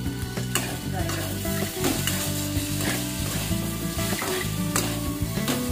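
Metal spatula stirring and scraping sliced onions, carrots and capsicum in a wok as they sizzle in hot oil, with repeated clicks of the spatula against the pan.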